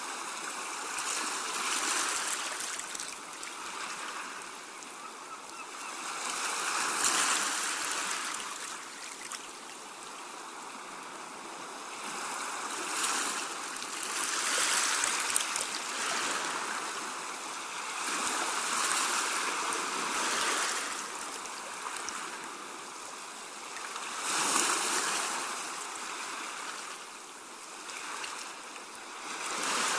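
Sea water washing onto a shore and drawing back, a rushing hiss that swells and fades in repeated surges about every five to six seconds.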